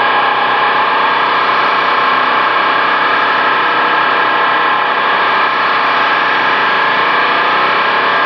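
Electronic noise music made of radio-like static and hum: a loud, steady wash of hiss with many held tones, sounding thin and lo-fi. In the second half a tone slowly sweeps upward.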